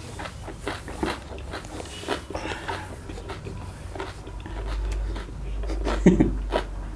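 A person chewing raw bitter gourd close to the microphone: irregular wet crunching, like chewing parched maize, with a few louder crunches about six seconds in.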